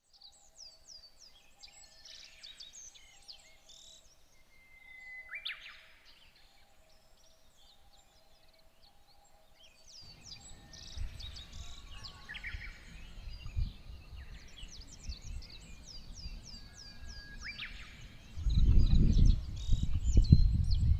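Birds chirping in runs of quick, high, downward-sweeping calls. About halfway through, wind starts buffeting the microphone, rising to loud gusts near the end.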